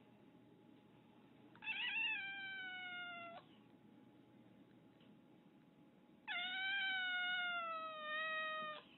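Domestic cat meowing twice: two long, drawn-out meows, each sliding slowly down in pitch, the second one longer.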